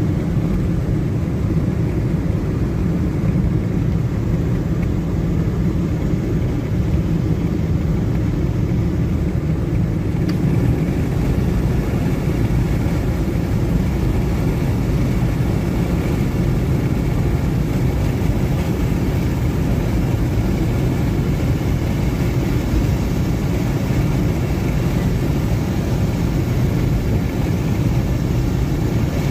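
Steady road and engine noise heard inside a car's cabin while driving at speed, a low rumble that does not change.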